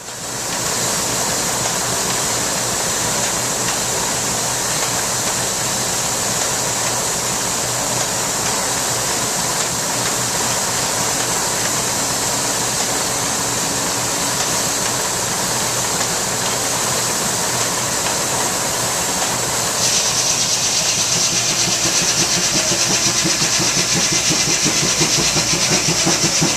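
Steam engine driving a sawmill, running with a steady hiss of steam. About twenty seconds in it grows a little louder, the hiss sharpens and a quick, regular low beat comes in.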